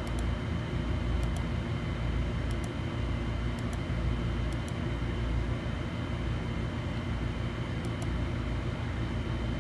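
Steady low rumble of workshop room noise with a faint high whine, and a few faint double clicks of a computer mouse as pins are selected in boardview software.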